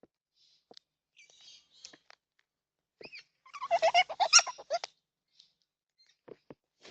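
Birds calling at a backyard feeder: scattered clicks and short chirps, then a burst of rapid, harsh chattering calls about halfway through.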